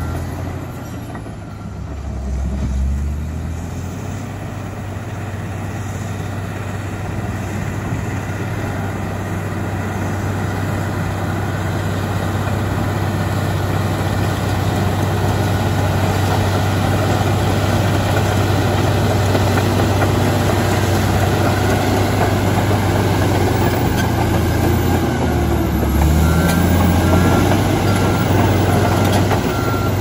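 Komatsu D85EX crawler bulldozer's diesel engine running under load as it pushes a heap of rock and soil with its blade, growing steadily louder as it approaches, with its pitch dipping briefly a couple of seconds in and again near the end.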